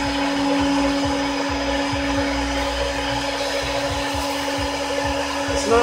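A small electric motor running steadily with rushing air and a constant hum.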